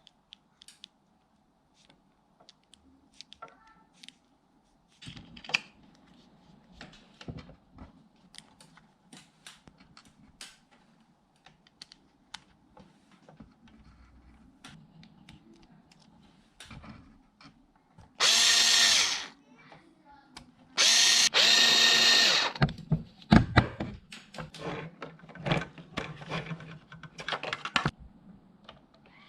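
Electric drill driver whining in two short bursts of a second or so, with light clicks and taps of small parts being handled before and between them.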